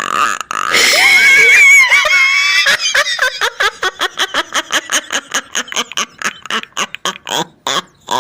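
Laughing sound effect: a loud, high, wavering squeal of laughter, then a long run of quick, evenly spaced "ha" pulses, about five a second, that gradually grow quieter before cutting off.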